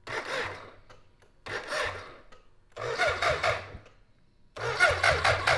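Electric starter cranking a 1985 BMW K100's 1000cc inline-four engine, the first try after fifteen years in storage. It gives three short bursts, then from about four and a half seconds in a longer steady crank with an even chug about six times a second. The engine turns over without catching.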